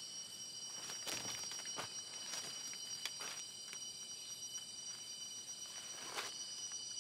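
Rainforest insects droning in several steady high-pitched tones, with a few scattered crackles from the forest floor.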